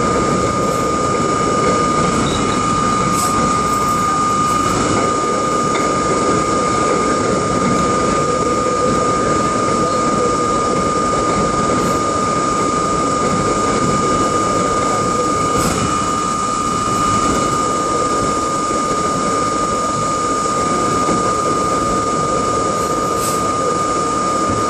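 R32 subway train running steadily at speed: constant rolling rumble with a steady high-pitched tone throughout and a few faint clicks.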